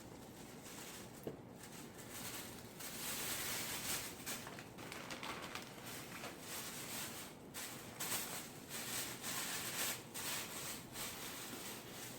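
Plastic packaging rustling and crinkling on and off, with small clicks, as masks are handled for packing.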